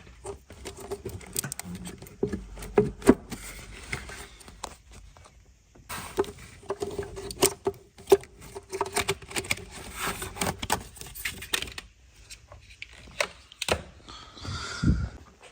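Irregular small plastic clicks, knocks and scrapes of hands releasing the side clips on engine DME wiring connectors and working them loose, with a faint steady hum for several seconds mid-way.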